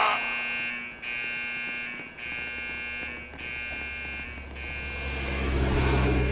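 Fire alarm sounding: a harsh buzzing tone in repeated pulses about a second long, each broken by a brief gap.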